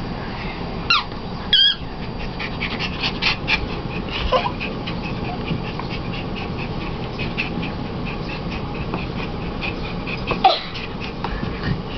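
Yorkie–Silky terrier mix puppy at play, giving a few short high-pitched yips, with quick light clicking in between.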